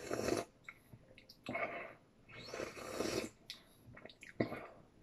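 A person slurping soup from a bowl: three noisy slurps over about three seconds, followed by a short click.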